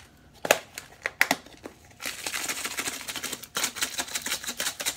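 A few sharp clicks, then from about two seconds in a fast, steady rattle of a seasoning shaker being shaken, garlic powder going onto meat.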